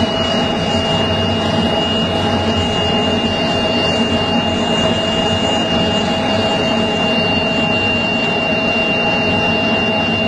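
Military jet engines running on the runway: a loud, steady rush with a high, steady whine over it.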